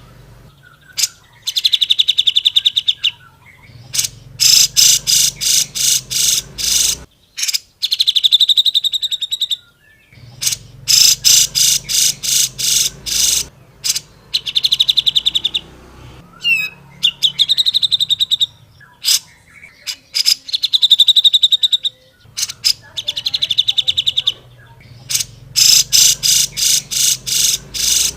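Cucak jenggot (grey-cheeked bulbul) singing loudly in full voice. Bursts of fast trills alternate with runs of sharp repeated notes, a few a second, with short pauses between phrases.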